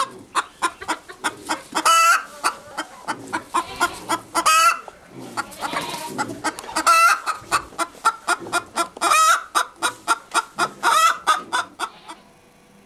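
Domestic hen clucking: a rapid run of short clucks, about three or four a second, broken every two seconds or so by a longer drawn-out call. The clucking stops near the end.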